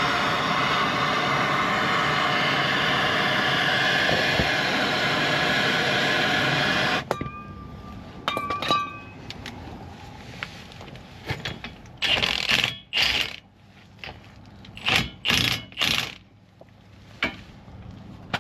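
A power tool runs steadily, spinning a nut down the threaded rod of a makeshift wheel-bearing press, and stops abruptly about seven seconds in. Then come metal clinks and rattles of tools and parts being handled, with a few short louder scrapes or rasps near the end.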